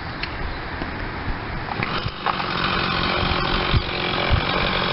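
Two-stroke chainsaw engine running in a chainsaw mill, growing louder about two seconds in.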